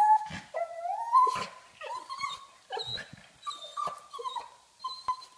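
Pug whining in a series of short, high-pitched calls, several rising in pitch, a sound of wanting to play.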